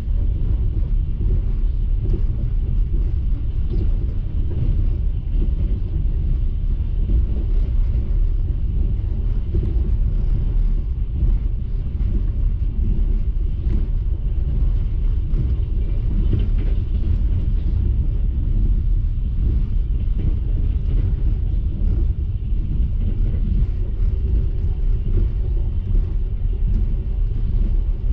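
Steady low rumble of a moving passenger train heard from inside the carriage.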